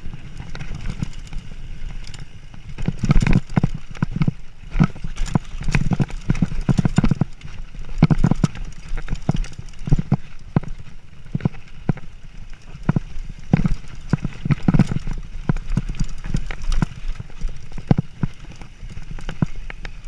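Irregular knocks and clatters of a mountain bike and rider on rock, over a low rumble of wind on the microphone.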